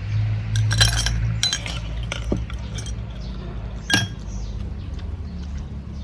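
Tableware clinking during a meal: about five short, sharp clinks of utensils against plates or a glass, the loudest about a second in and about four seconds in, over a low steady hum.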